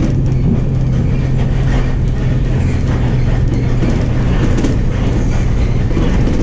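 Engine of a Higer KLG6770G bus heard from inside the passenger cabin while the bus drives, a steady low drone mixed with road rumble and body rattle.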